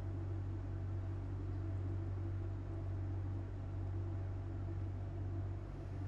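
Steady low hum with a faint hiss, unchanging throughout: background room tone.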